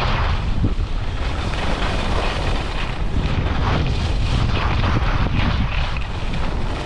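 Wind buffeting the microphone: a heavy low rumble with a rushing hiss that swells and fades every second or so.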